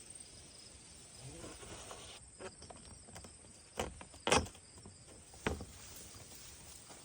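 Quiet cornfield ambience with faint insects chirring, broken by a few short rustles or knocks about four and five seconds in, the loudest just past four seconds.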